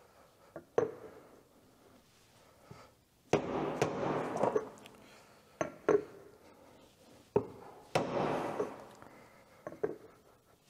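Hammer blows on a steel seal driver, driving a new wheel seal into a truck's rear hub. There are about ten strikes at uneven spacing, some in quick pairs, each with a short metallic ring. The seal is a tight fit.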